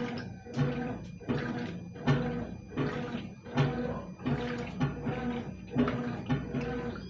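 Consul CWS12 washing machine agitating a load of coloured clothes: a steady motor hum under water and clothes sloshing back and forth in a regular rhythm, one surge about every 0.7 seconds.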